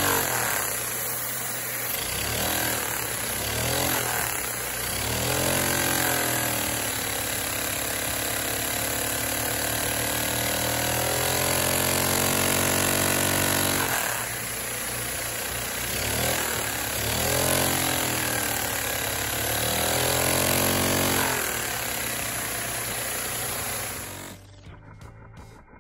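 One-cylinder LEGO butterfly vacuum engine running fast, its piston and flywheel making a rapid clattering run whose pitch rises and falls several times as the speed changes. The sound cuts off suddenly near the end.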